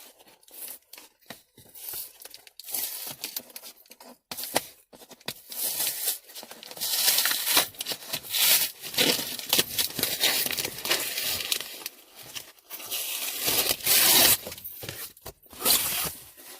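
Shipping package being torn open by hand: repeated ripping and crinkling of packing material in irregular bursts, loudest about halfway through and again near the end.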